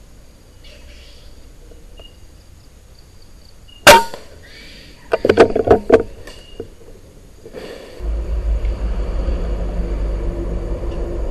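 Air rifle shot about four seconds in, a single sharp crack over faint insect chirping. About a second later comes a short flurry of rustling and knocks, and near the end a steady low rumble sets in.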